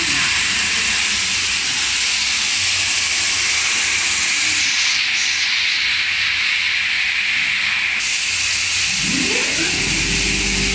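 Tiger nut peeling machine running: a loud, steady rushing hiss. Near the end a lower motor hum rises in pitch and settles into a steady drone.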